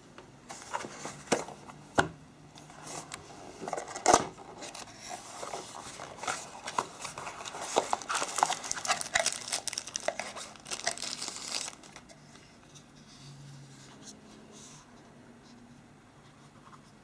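Packaging of a mobile phone being opened and handled: a few sharp clicks and taps, then several seconds of dense crinkling and rustling that stops about twelve seconds in, leaving only faint handling sounds.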